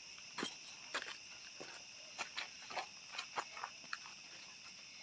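Steady high-pitched drone of forest insects, with irregular scuffing footsteps on a dry, dusty dirt trail.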